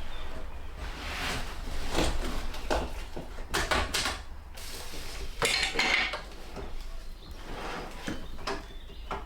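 Irregular light clatter and knocks of small hard objects being handled.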